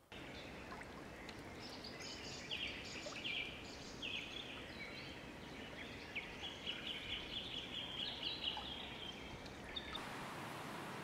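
A small songbird calling a long run of short, high chirping notes over a steady outdoor hiss. Near the end the chirps stop and the background changes to a brighter steady hiss.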